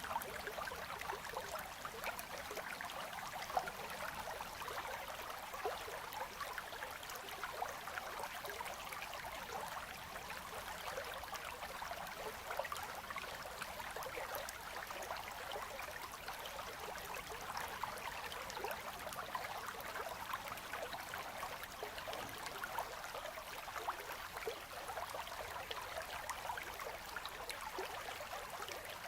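Winter river current running steadily between ice, a continuous babble of flowing water with many small gurgles.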